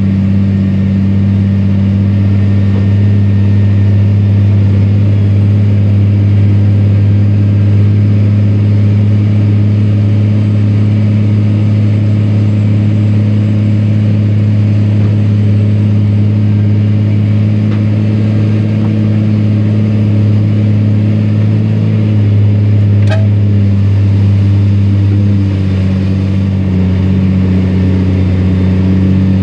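Iveco truck's diesel engine running hard at steady revs while labouring through deep sand, with a slight shift in its note about three-quarters through and one short click.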